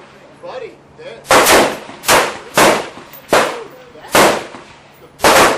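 Semi-automatic Bushmaster XM15-E2S AR-15 rifle, fitted with a gas piston kit, firing 5.56 mm Federal XM193 rounds. About six sharp shots follow one another at irregular gaps of half a second to a second.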